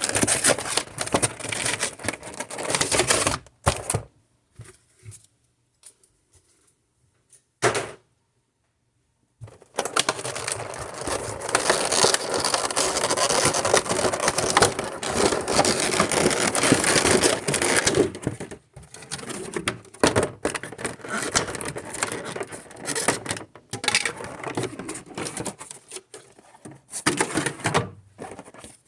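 Pokémon card box packaging being torn open and handled by hand: ripping, crinkling and scraping with scattered clicks. About four seconds in there is a pause of some five seconds, then a long stretch of continuous ripping and rustling that breaks into shorter bursts near the end.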